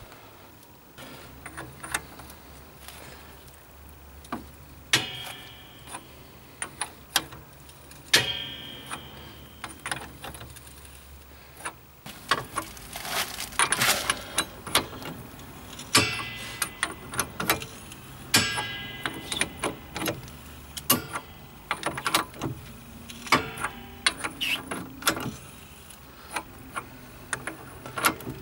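Hand tools working a wheel bearing press tool on a car's hub carrier: a run of metallic clicks, knocks and ratcheting, with short metal-on-metal squeaks several times as the new bearing is drawn into the hub carrier.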